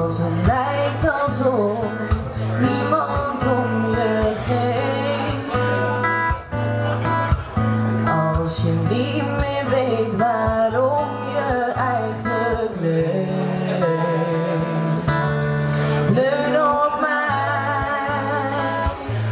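A woman singing a Dutch pop ballad into a microphone, live, with acoustic guitar accompaniment. Near the end she holds a note with vibrato.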